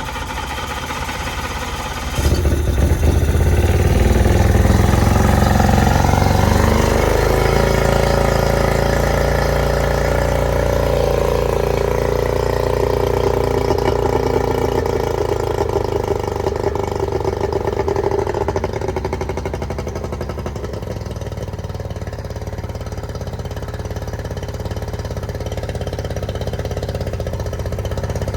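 Yamaha 90 hp two-stroke, three-cylinder outboard running on its first start after a powerhead rebuild. About two seconds in it picks up and gets louder, then the revs ease down over several seconds to a steady idle.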